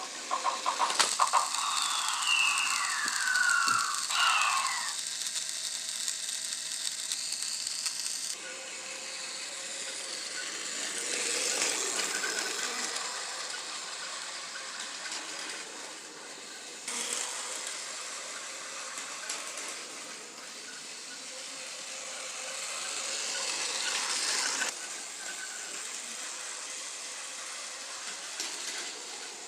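Battery-powered Plarail toy train (Tokai 313 series) running on plastic track, its small motor and gearbox making a steady whirring clatter that changes character several times. About two seconds in, a falling electronic whine plays from its sound unit.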